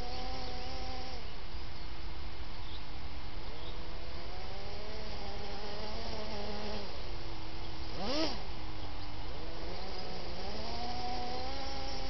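Kyosho Blizzard RC snow groomer's electric drive motors whining. The pitch climbs as it speeds up, holds, then drops as it slows, and this happens several times. About eight seconds in there is a quick burst up and back down.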